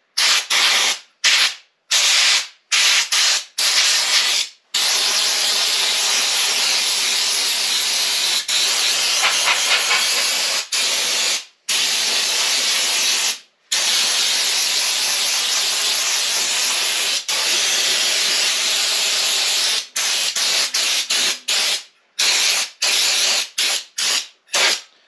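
Air-powered spray gun with an extension wand hissing as it sprays Fluid Film lanolin rust protection. It goes in several short bursts at first, then long trigger pulls of several seconds each, then short bursts again near the end.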